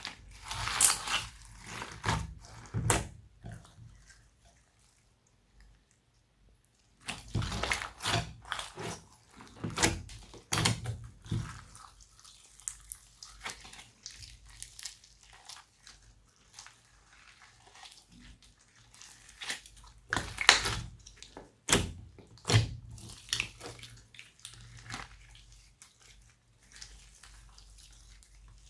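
Glossy slime being squeezed and worked by hand, making wet, sticky clicks and pops. The sounds come in several bursts with quieter pauses between.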